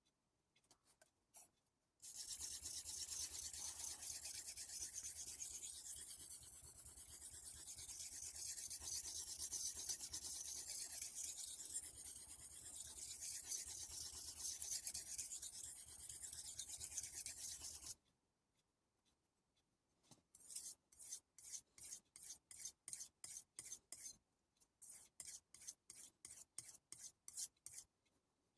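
A Global santoku's steel blade being stroked back and forth on the 1000-grit side of a Chroma water stone, a quick rasping scrape at about two strokes a second, late on. Earlier, a loud steady hiss runs for about sixteen seconds and cuts off sharply.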